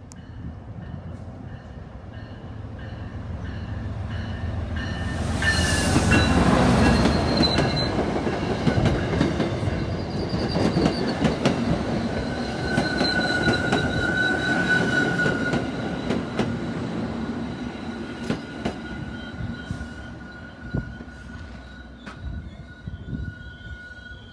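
A train passing: it draws near and is loudest about six seconds in. Then the cars clack steadily over the rail joints, with high-pitched wheel squeal, and the sound slowly fades.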